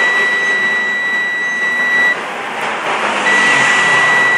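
Digital multimeter's continuity buzzer sounding a steady high beep twice, each about two seconds long, as its probes are held across a diode on the TV board. The tone holds rather than dying away after a moment, the sign of a shorted diode.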